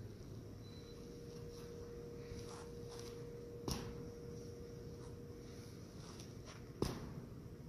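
Quiet indoor room tone with a steady hum that stops about two-thirds of the way in, broken by two sharp slaps about three seconds apart from a person's warm-up movements.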